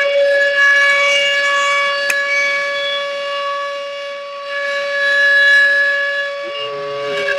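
A siren sounds one long, steady tone that fades a little and then swells again about halfway through. Near the end a second, lower tone comes in and slowly falls.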